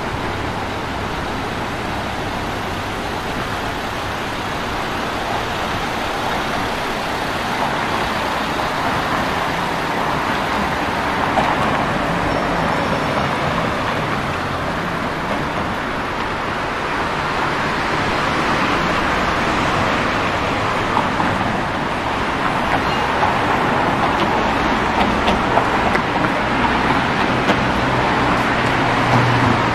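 Road traffic on a city street: cars passing in a steady stream, the noise swelling and fading as they go by, with a vehicle's low engine hum near the end.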